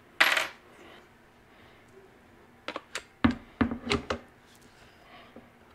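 Handling noise from a scoped rifle on a wooden workbench: a short burst of noise near the start, then a quick run of about six sharp clicks and knocks around the middle.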